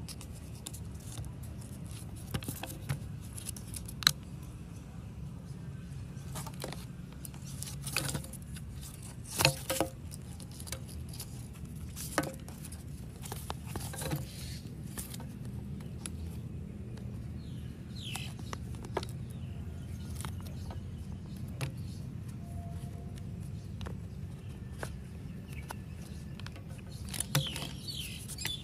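Scattered clicks and knocks of an angle grinder's plastic housing and internal parts being handled and fitted together, over a steady low hum, with a few bird chirps near the end.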